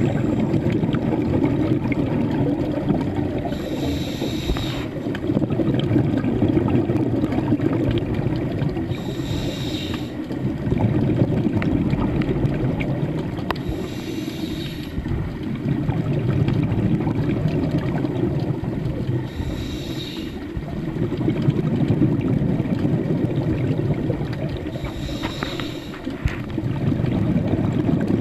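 Scuba diver breathing through a regulator underwater: a short hiss on each inhale, about every five seconds, then a long rumble of exhaled bubbles.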